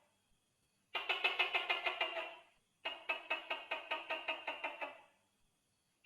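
Tokay gecko calling: two rattling trains of rapid clicks, about eight a second, each lasting a second and a half to two seconds and fading away, the first about a second in and the second about three seconds in.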